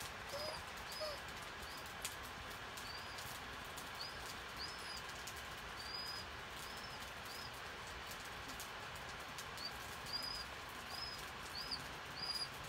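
A bird outside calling a short, high chirp over and over, about two notes a second in runs, with a pause of a couple of seconds past the middle.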